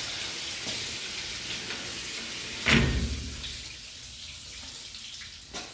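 Water running and splashing as a bathroom overflows, broken by one loud thump about two and a half seconds in. After the thump the water sound slowly fades, and a light knock comes near the end.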